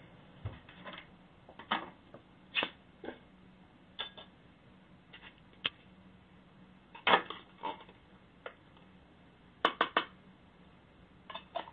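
Red fox eating dog food from a bowl: irregular crunches and clicks, a quick cluster of sharp ones near the end, as it chews and works at the bowl. Picked up by a Ring doorbell camera's microphone, thin-sounding with a faint steady hum underneath.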